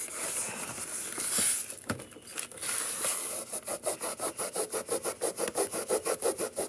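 A cleaning wipe rubbing over the textured plastic case of a Bell & Howell portable cassette player. It starts as a steady rub, then from about three seconds in turns into quick back-and-forth scrubbing strokes, about six a second.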